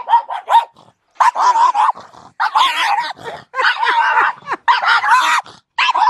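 Dogs barking repeatedly, a loud run of rough barks with short gaps between them.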